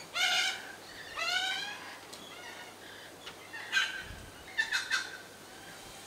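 Rainbow lorikeets calling: two longer calls in the first two seconds, then a few shorter calls in quick succession nearer the end.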